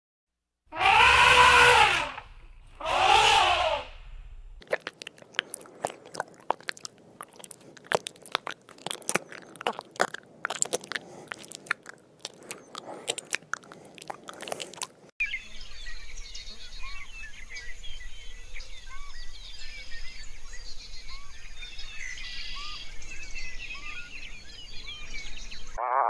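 An elephant calls twice, loud, each call about a second and a half long. Then comes about ten seconds of crisp crunching clicks, a snail feeding on a leaf, and after that a steady chorus of small chirping calls.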